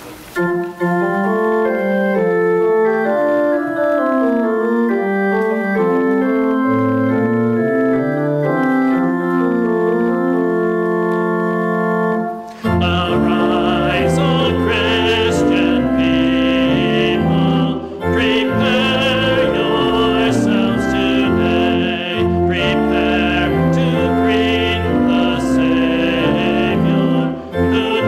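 Church organ playing a hymn, slow held chords that move step by step. About halfway through it grows fuller, with deep bass notes and a wavering high line.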